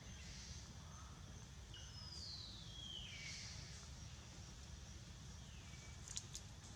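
A faint, high-pitched animal call sliding downward in pitch for about a second. A shorter, softer one follows near the end, over a steady low rumble of background noise, with a few sharp clicks at the very end.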